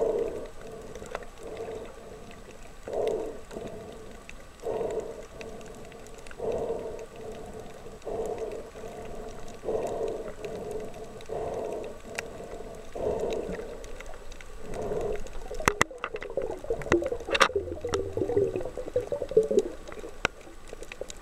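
Underwater sound picked up through a camera housing: a steady low hum with muffled swelling pulses about every second and a half. About three-quarters of the way through it turns to a stretch of bubbling gurgle, broken by a couple of sharp clicks.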